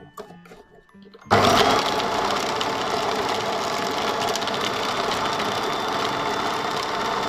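Food processor switched on about a second in and running steadily, its blade churning ground pork with ice into a sticky paste while the ice is not yet finely chopped.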